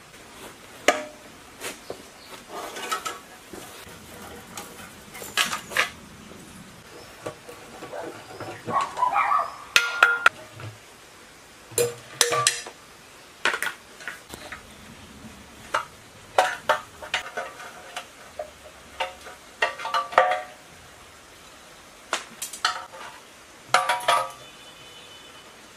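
Hand tools clinking and knocking against the metal of an old diesel engine as its fuel tank is unbolted: scattered short metallic clinks and knocks, some with a brief ring, and a knock near the end as the steel tank is shifted.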